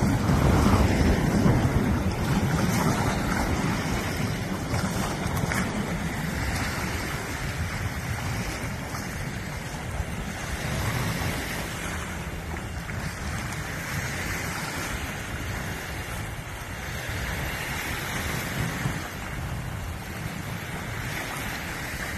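Wind buffeting the microphone, heaviest in the first couple of seconds, over small waves lapping at the shore.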